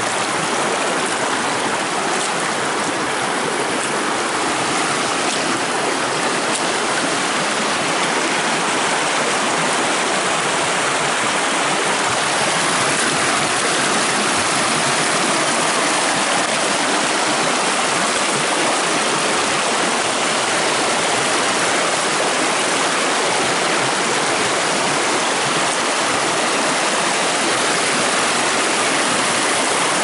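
Fast mountain creek rushing over rocks and small cascades: a loud, steady wash of white water.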